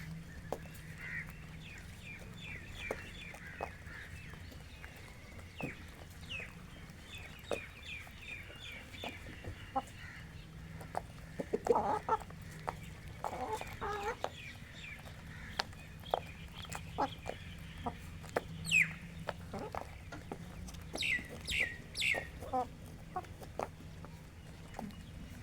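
Free-range rooster and hens clucking while they feed: a run of quick short clucks, a few louder calls midway, and some sharp high falling squawks near the end, with many small ticks scattered throughout.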